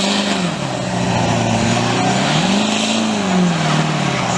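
A car engine revving hard during a burnout in the street; the revs climb and fall back twice, over a steady hiss of spinning tyres. The onlookers blame the traction control, left on, for holding the burnout back.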